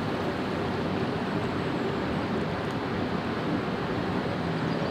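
Steady rushing of a waterfall and river, an even noise that holds unchanged throughout.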